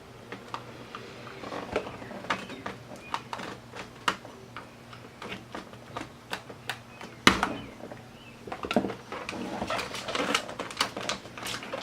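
Irregular plastic clicks and taps from a pick tool working at the retaining tabs of a 2006 Audi A4's driver window switch to free it from its trim panel, with one louder click about seven seconds in.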